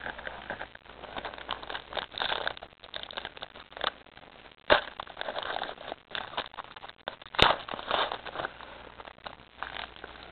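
Foil trading-card pack wrappers crinkling and crackling as they are handled, with two sharp knocks, about five and seven seconds in.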